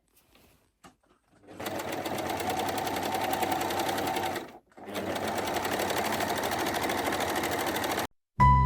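Sewing machine stitching in two steady runs of about three seconds each, with a short stop between them, after a few faint clicks. Music starts near the end.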